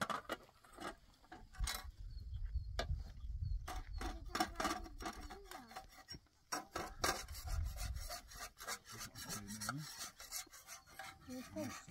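Dry firewood being chopped and broken up with a hand tool: a string of irregular sharp knocks and cracks, with a low rumble coming and going underneath.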